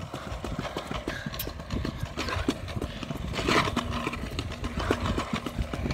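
Kick scooter wheels rolling over a concrete sidewalk: a rough rumble broken by irregular clacks as the small hard wheels cross the joints between the slabs.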